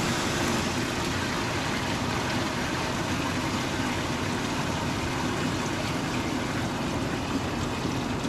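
Mitsubishi wire EDM starting its cut cycle and filling its work tank with filtered water: a steady rushing of pumped water with the machine's pump running beneath it.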